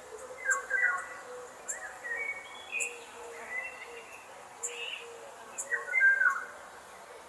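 Songbirds chirping outdoors: one bird gives the same short call phrase twice, once about half a second in and again near six seconds, with quieter chirps between. Faint insects chirp steadily underneath.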